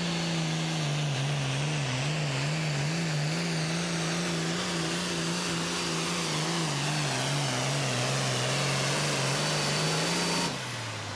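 Super farm pulling tractor's turbocharged diesel engine running flat out under load while pulling the sled. Its pitch wavers rapidly for a few seconds, then holds steady. Its note drops off suddenly near the end as the throttle comes off at the end of the pull.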